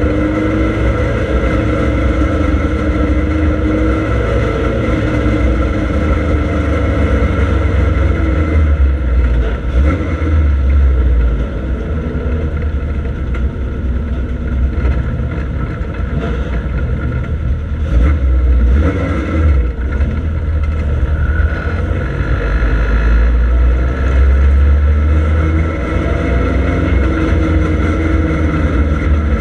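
Triumph Dolomite Sprint's 2.0-litre slant-four engine heard from inside the car's cabin, running steadily while the car drives slowly. The deep drone rises and falls a little in pitch.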